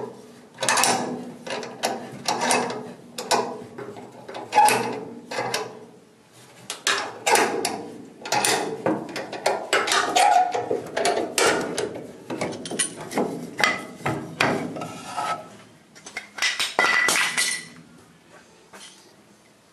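Irregular metallic knocks and clanks from hand-tool work on the VW Bus's sheet-steel floor panels, some ringing briefly. They come in clusters and trail off after about eighteen seconds.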